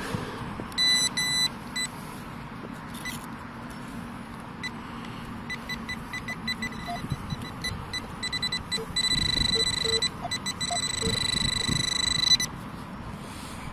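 Handheld metal-detecting pinpointer probed in a dug hole and beeping on a metal target: a few short beeps, then quicker scattered beeps, then a near-steady tone for about three seconds as the probe closes on the target. Soft scraping of the probe in the soil underneath.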